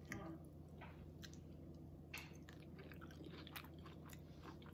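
A person chewing food close to the microphone: faint, irregular soft clicks and smacks of the mouth.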